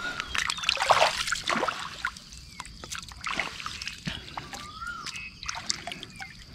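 Stream water splashing, sloshing and dripping as hands work in the shallows, pulling small fish out of a gill net. The splashing is loudest about a second in, over a steady high insect drone, with a short rising-and-falling bird call about five seconds in.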